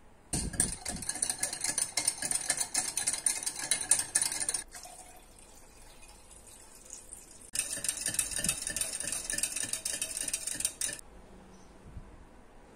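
Small wire whisk beating tomato paste sauce in a glass measuring jug: rapid metal-on-glass clattering, in two spells of about four seconds with a quieter gap of about three seconds between them.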